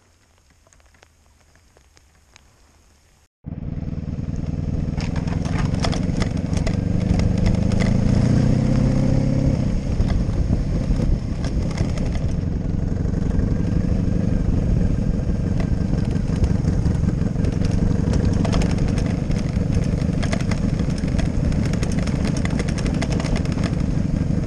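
Near silence, then about three and a half seconds in an abrupt cut to a motorcycle engine running under way, its pitch rising from about five to ten seconds in as the bike speeds up. A steady rush of wind on the handlebar camera runs under the engine.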